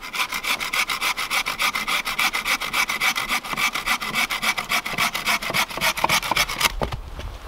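Gerber Freescape folding bow saw cutting through a log: fast, even rasping strokes, cutting on both push and pull, several a second. The sawing stops near the end.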